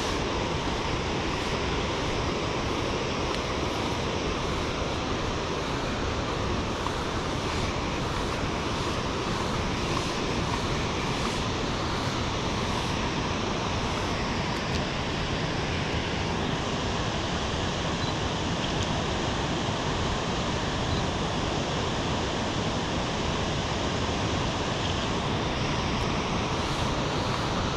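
Steady rushing of a waterfall, an even roar of water with no breaks.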